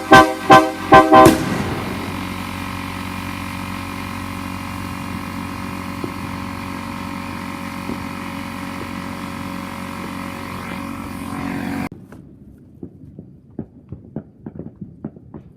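A few short, loud blasts of a locomotive air horn in the first second and a half. A steady, quieter sound follows and cuts off suddenly about twelve seconds in, leaving faint scattered clicks.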